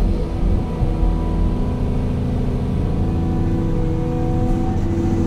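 Caterpillar hydraulic excavator's diesel engine running steadily, heard from inside the cab as the operator works the boom, with several steady tones above the engine. One of the tones steps up in pitch about three and a half seconds in.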